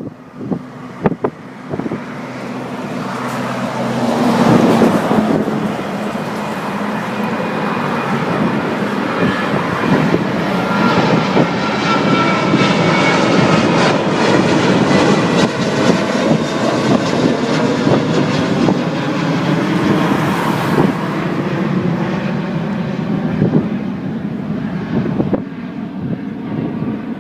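Airliner's jet engines at takeoff power: a dense noise that swells over the first few seconds and then stays loud and steady, with a faint high whine over it. A few sharp knocks sound in the first two seconds.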